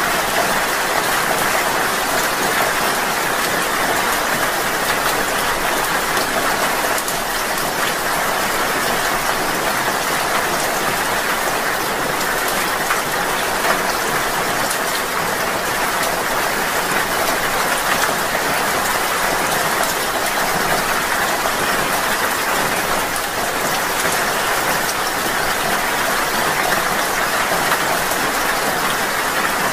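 Steady rain falling: an even hiss of many drops, with scattered sharper drop ticks.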